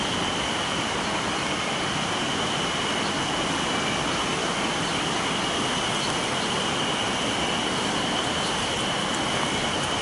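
A river rushing steadily, with a continuous high-pitched insect drone over it, which is taken for cicadas already singing in late May.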